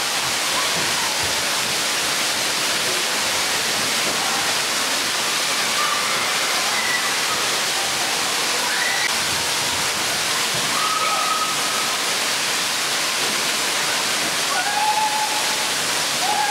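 Steady rush of water pouring and splashing from a water-play structure and water slide. Faint short calls from distant voices rise above it now and then.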